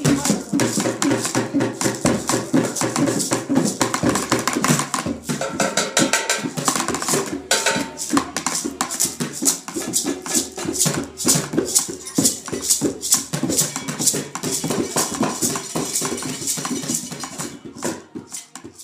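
Drum circle: several people playing hand drums with shakers and other small percussion together in a fast, dense groove, fading out at the end.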